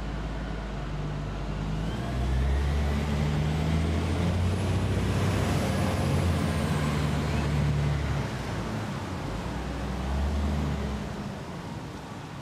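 Heavy diesel engine of a Kirow Slag Taurus P 120 slag pot carrier running as the vehicle drives. The low engine note grows louder about two seconds in, and a faint high whine rises and falls in the middle.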